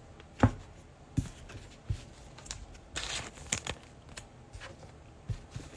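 Panini Prizm football trading cards being handled and slid through the hands, making short flicks, taps and rustles.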